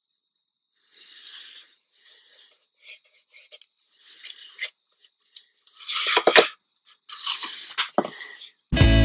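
A glue brush spreading white craft glue on a wooden box panel, heard as a run of short scratchy brush strokes. Louder rustling and handling of a fabric sheet follows in the second half.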